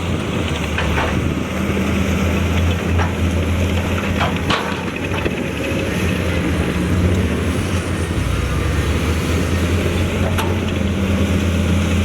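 Diesel engine of heavy earthmoving equipment running steadily under work, with a few sharp metallic clanks scattered through it. Its deepest note grows stronger about eight seconds in.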